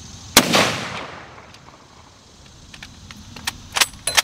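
A single rifle shot from an M1903 Springfield firing a .30-06 round: one sharp, loud crack with a short echoing tail. A few sharp clicks follow near the end.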